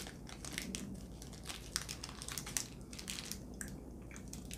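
Faint, irregular crinkling and small clicks of a person eating a soft, moist piece of Lebkuchen (gingerbread).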